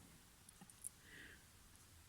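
Near silence: a few faint ticks, then a short soft breath through the nose about a second in.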